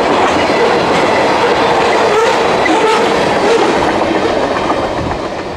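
Freight train cars rolling past over a grade crossing: a loud, steady clatter with wavering wheel squeal, which eases off near the end. The cars are bouncing hard over the crossing, with a racket that sounded like it was going to derail.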